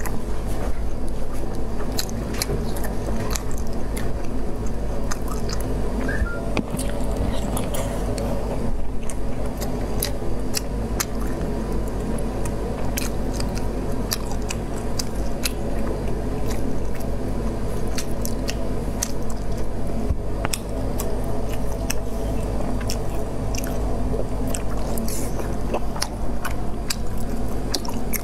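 Close-miked eating: wet, sticky squishing and many sharp clicks as fingers pull apart sauce-soaked food in a plastic tub, with chewing. A steady low hum runs underneath.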